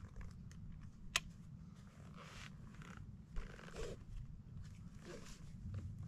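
Backpacking pack being fitted after it is shouldered: nylon straps and webbing rustle in short pulls, with one sharp buckle click about a second in. Low wind rumble sits on the microphone throughout.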